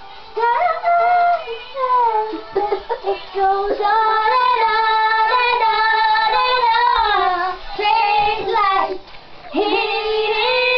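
Two young girls singing together in long held notes that glide down between phrases, with short breaks for breath.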